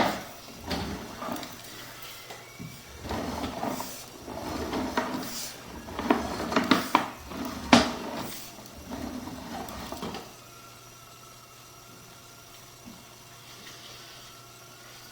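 Sewer inspection camera's push cable being fed into a drain line: irregular knocks, scrapes and rattles for about ten seconds, with a sharp knock right at the start and another about eight seconds in, then it goes much quieter apart from a faint steady hum.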